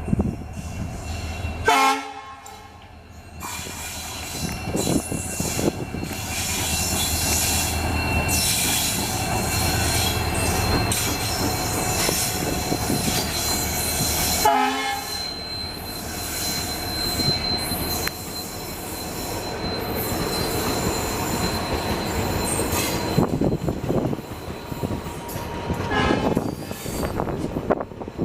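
Passenger train hauled by an EMD diesel locomotive running through the station, its wheels squealing against the rails. Short horn blasts sound about two seconds in and again about halfway through.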